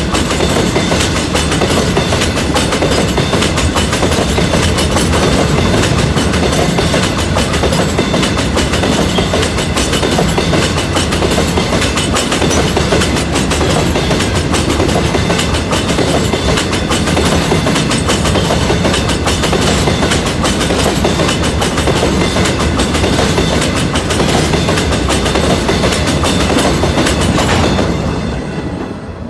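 Open-top hopper cars of a unit rock train rolling past close by, steel wheels clicking steadily over the rails with a continuous rumble. The sound falls away near the end as the last car passes.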